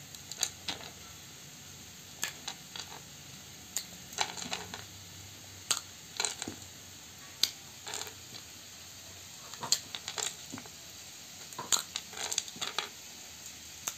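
Brittle bari (dried lentil dumplings) cracking and crunching as fingers break them into small pieces over a plate: irregular sharp cracks, a few every couple of seconds.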